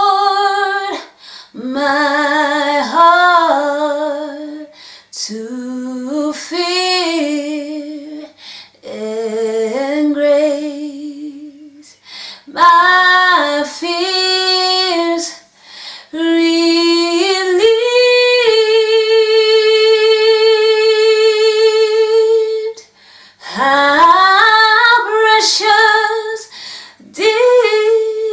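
A woman singing a slow worship song solo, with no accompaniment, in phrases broken by breaths. Around the middle she holds one long note with vibrato.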